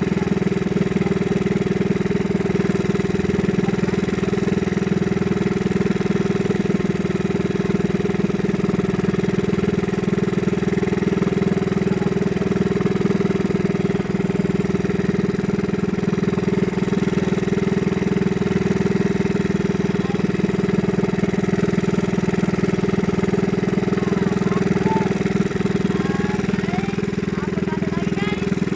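Small fishing boat's engine running steadily at a constant speed, with no change in pitch or level.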